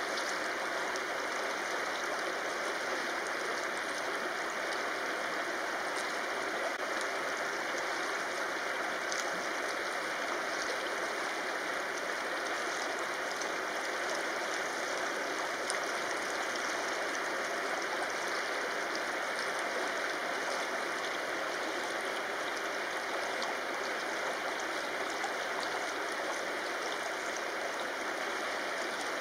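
Shallow river flowing over stones: a steady, even sound of running water.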